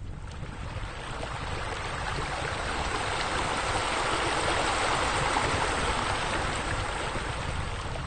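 Rushing, splashing water from the pool's water features pouring over the raised tiled wall, swelling to its loudest midway and easing off toward the end.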